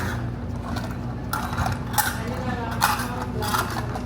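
Dishes and cutlery clinking several times over a steady background hum, with faint voices nearby.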